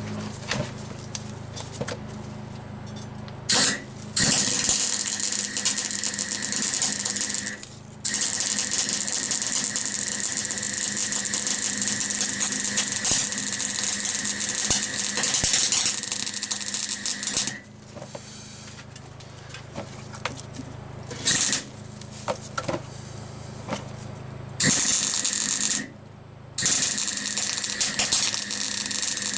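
Electric welding of a gearbox-mount bracket: bursts of steady crackling hiss as the welder runs, one run about ten seconds long near the start, then shorter runs and a quick tack. A low hum fills the pauses between runs.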